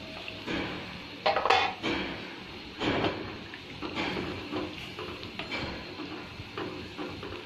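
Wooden spatula stirring a watery chicken curry in a metal pot, scraping and knocking against the pot in irregular strokes, loudest about a second and a half in.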